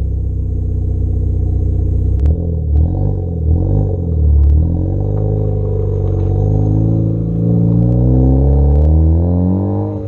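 Ford Focus ST's turbocharged engine heard through its exhaust, running on a pops-and-crackles tune. It idles, is blipped with sharp crackles and pops from about two seconds in, then the revs climb steadily for several seconds before dropping back near the end.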